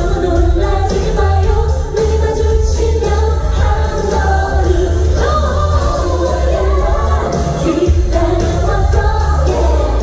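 Live pop song: a woman singing into a microphone over a band with keyboard and electric guitar and a heavy, steady bass, as heard from the audience in a concert hall.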